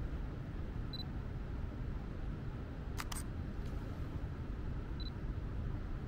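Quiet city street ambience at night: a steady low rumble, with a short high electronic beep about a second in and again about four seconds later, and two sharp clicks in quick succession midway.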